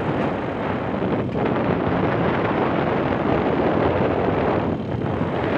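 Steady rush of wind buffeting a phone's microphone on a moving motorcycle, with the vehicle's running noise beneath.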